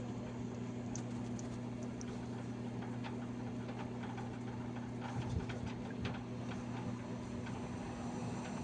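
Raypak 106A heater making a steady whine, a constant tone with a strong overtone, with scattered faint ticks over it.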